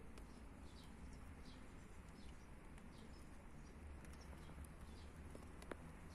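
Faint outdoor ambience: small birds chirping in the distance, short high notes repeating every half second or so over a low steady rumble, with a single sharp click near the end.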